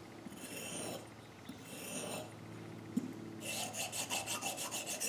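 Steel pruning-shear blade stroked across a whetstone: two slower scraping strokes, then about a second and a half in from the end a quick run of short rubs, about eight or nine a second. The strokes are honing off the burr left on the blade.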